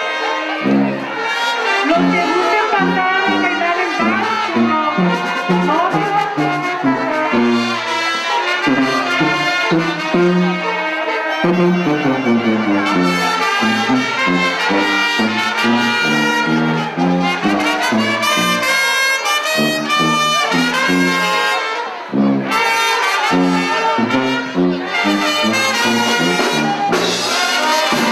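Brass band playing dance music: trumpets and trombones carry the tune over a tuba bass line that steps quickly from note to note.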